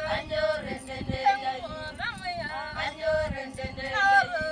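A group of Maasai women singing together, unaccompanied: a chanted melody of several voices that slide between held notes.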